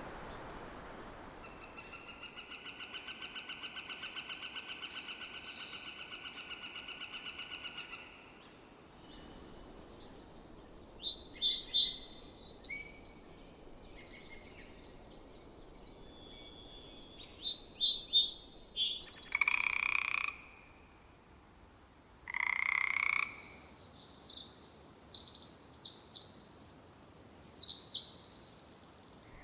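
A run of rainforest wetland animal calls. A northern flicker gives a long call of rapid repeated notes for about six seconds. Two song sparrow songs follow, then two croaks from a Pacific chorus frog, and a Pacific wren's long, high, rapid song runs to the end.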